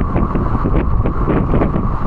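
Strong wind buffeting the microphone, with a silk scarf flapping and fluttering rapidly in it.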